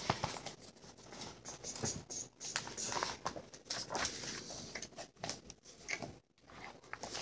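Sticker sheets and plastic packaging being handled: irregular crinkling, rustling and light taps as stickers are worked off the sheet.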